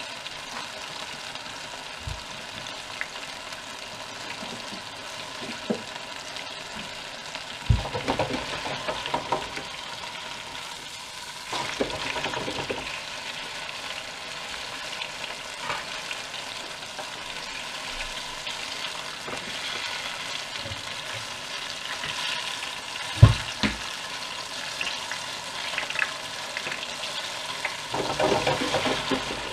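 Banana fritters in tempura batter frying in a countertop deep fat fryer, the oil bubbling and sizzling steadily. A few short knocks and clatters break in, the sharpest about two-thirds of the way through, with more near the end.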